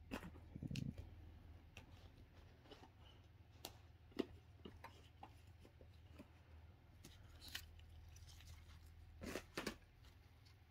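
Near silence with faint, scattered clicks and rustles of trading cards being handled and sorted. A sharper click comes about four seconds in, and two come close together near the end.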